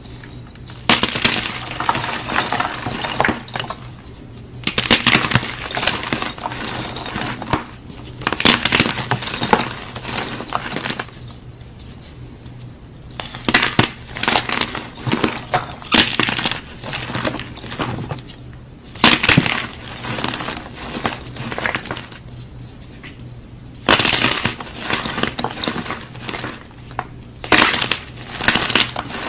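Gym chalk blocks being crushed, crunchy crumbling in bouts of one to a few seconds separated by short pauses, over a faint steady low hum.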